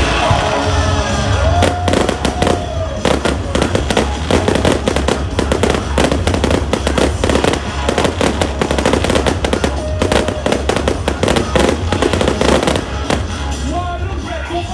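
Fireworks going off: a dense run of bangs and crackling from aerial shells and fountains, thinning out near the end, over loud music with a steady bass.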